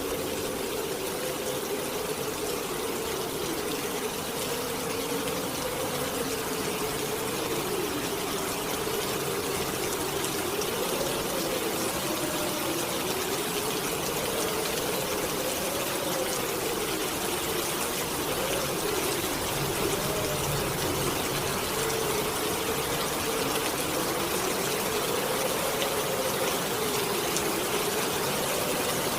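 Heavy rain hissing steadily under a howling wind, the howl rising and falling slowly in pitch.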